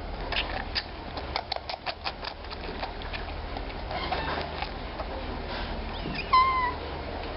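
Baby African clawless otter suckling at a feeding bottle, with a quick run of small wet clicks, then one short high call that dips in pitch at its end, about six seconds in.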